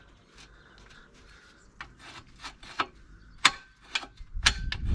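Sharp clicks and clacks, about half a dozen at irregular intervals, as the freshly oiled flaps and linkage of an old Accord potato planter are worked by hand to free them up after being stiff. A low rumble starts near the end.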